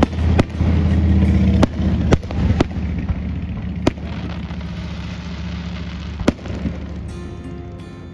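Aerial firework shells bursting: a string of about seven sharp bangs, bunched in the first four seconds, with one more loud bang past six seconds, over a steady low hum.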